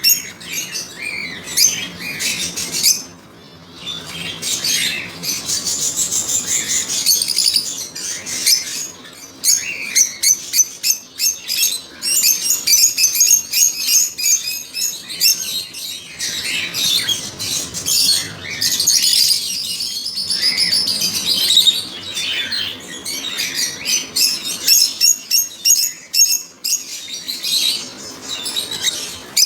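African lovebirds chattering: quick runs of high, shrill chirps and squawks, nearly continuous, with a brief lull about three seconds in.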